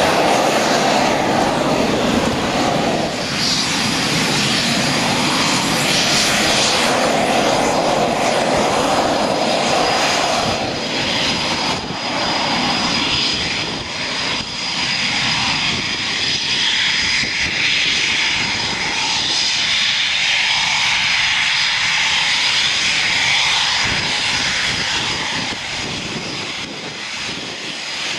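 Jet noise from a Eurofighter Typhoon's twin EJ200 turbofans running on the ground, loud and steady, with a thin high whine over it. The noise changes abruptly a couple of times.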